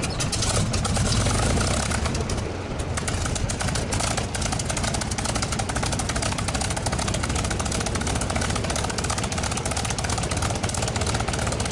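P-51 Mustang's Packard Merlin V-12 engine starting up: it catches right at the start and then runs steadily at idle, with a rapid, even firing rattle.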